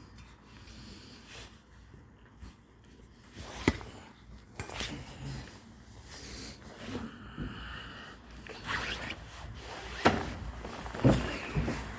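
Clothing and hands rubbing and scraping as someone climbs, with two sharp knocks, one about four seconds in and one near ten seconds.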